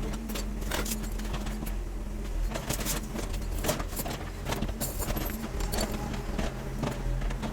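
Irregular metallic clinks and knocks from electrical installation work, as tools and metal fittings are handled, over a steady low mechanical hum.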